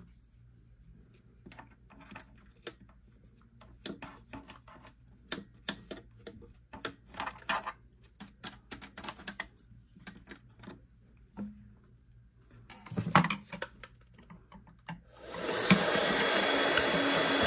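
A small brush scratching at lint in a sewing machine's bobbin area, in short irregular strokes. About fifteen seconds in, a battery-powered handheld mini vacuum switches on and runs with a steady, loud rushing as it sucks lint from the same spot.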